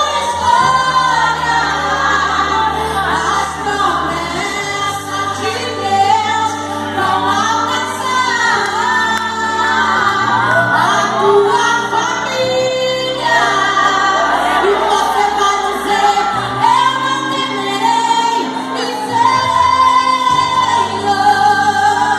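A gospel song sung in Portuguese, led by a woman's voice over instrumental accompaniment, with sustained bass notes changing every few seconds.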